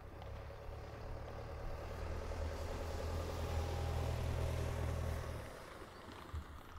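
A van driving past on a sand track: engine hum and tyre noise grow louder as it approaches, peak about four seconds in, then drop away quickly as it passes.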